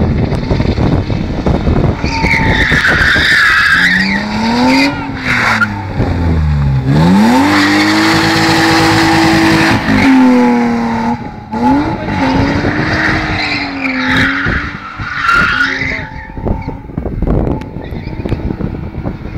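BMW E36 320i's inline-six engine revving hard while its rear tyres squeal in a drift. The engine note rises and falls with the throttle and is held high for a couple of seconds in the middle as the rear wheels spin, and the tyre squeal comes in two spells, near the start and again about two-thirds of the way through. The sound fades as the car moves away near the end.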